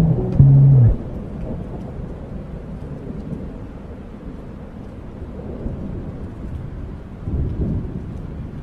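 Steady rain with low rolls of thunder, a louder rumble near the end, after the last bass notes of the music stop about a second in.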